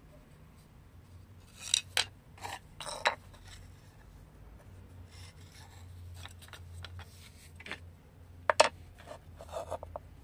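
Wooden spoons knocking and scraping on a stone tile floor as they are picked up and set down: a few sharp clacks about two to three seconds in, then a light rubbing, and another cluster of clacks near the end.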